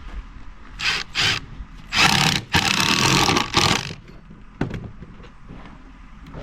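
Cordless impact driver with a T25 Torx bit driving a screw into wood: two short bursts, then a longer run of about two seconds with a brief break in it.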